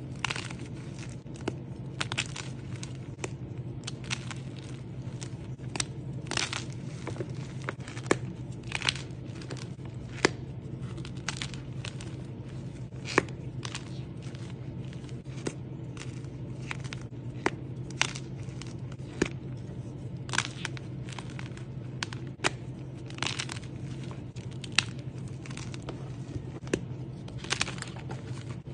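Hands squeezing and breaking apart dry, crumbly chalky blocks and loose chunks: irregular sharp crunches and crackles, one to three a second, over a low steady hum.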